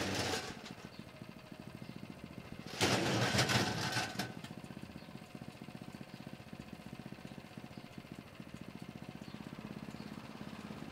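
A small engine running steadily with a fast, even pulse. It has two louder rushes of noise, one right at the start and a longer one about three seconds in.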